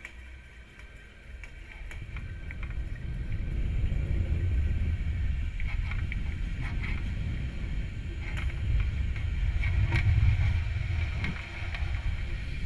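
Low rumble of air buffeting the rocket's onboard camera, building over the first few seconds, with scattered light clicks and rattles over a faint steady high whine.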